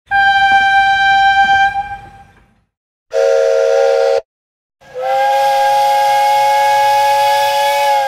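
Three separate steam locomotive whistle blasts. First a single-note whistle held for about two seconds and fading away; then a short blast of a chime whistle, several notes sounding together as a chord, cut off after about a second; then, from about five seconds in, a longer, lower chime-whistle chord held steady.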